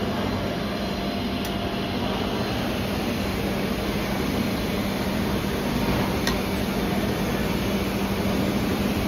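Steady hum of a wood lathe running with the mallet blank spinning, with a couple of faint ticks.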